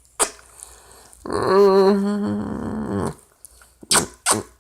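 A chihuahua growling once, a pitched, wavering growl of about two seconds that starts a little over a second in. A short click comes before it and two brief clicky noises near the end.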